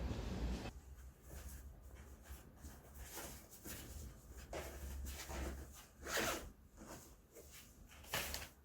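Background music cutting off within the first second, then quiet irregular rustling and scraping handling noises, with two louder short rasps about six and eight seconds in.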